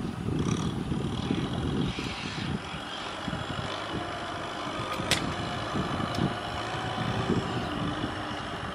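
Tractor engine running steadily under load as the tractor pushes mud with its front blade. A single sharp click sounds about five seconds in.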